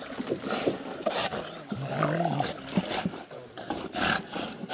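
A dog swimming with a stick in its mouth, splashing and paddling in pond water, with a brief growl that rises and falls about two seconds in.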